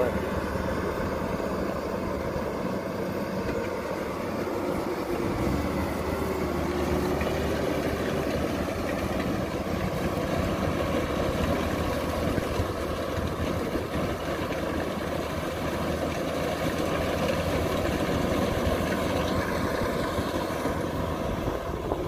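Kubota combine harvester's diesel engine running steadily as the machine works through flattened, waterlogged rice.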